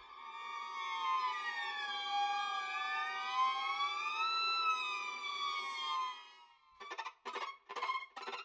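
Sampled solo viola texture from the 8Dio CASE Strings library: several bowed viola tones sliding slowly up and down against each other in overlapping glissandi, fading out after about six seconds. Near the end come about five short, choppy bowed strokes.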